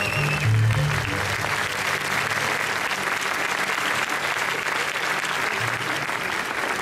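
Theatre audience applauding steadily at the close of a dance number. The band's last notes die away about a second in.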